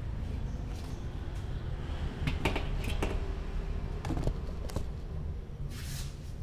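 Large aluminium wok being handled and set down on a portable gas stove: a series of short, light knocks and clanks of the metal pan, over a steady low rumble.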